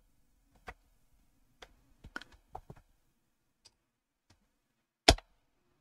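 Scattered clicks of computer keyboard keys and a mouse, a few faint ones with a cluster around two seconds in and one louder click about five seconds in.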